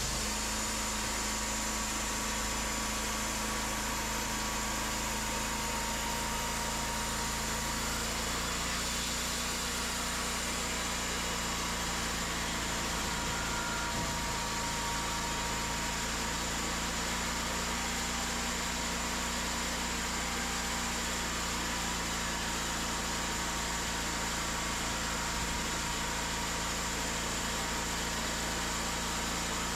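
Cooks 3238 hydraulic sawmill running steadily: a constant engine hum with an even hiss over it that does not change.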